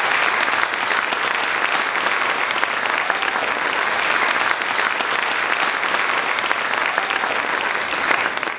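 Audience applauding, a steady dense clapping that holds at one level and fades away at the very end.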